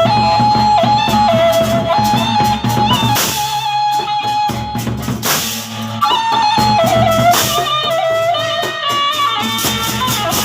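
Sasak gendang belek ensemble playing: big double-headed drums keep a steady beat under a held, bending melody line, with two loud cymbal crashes about three and five seconds in.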